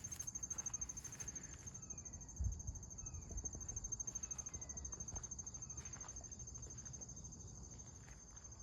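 Insects trilling steadily at a high pitch, with faint short bird chirps in the middle and a low rumble, plus one soft thump about two and a half seconds in.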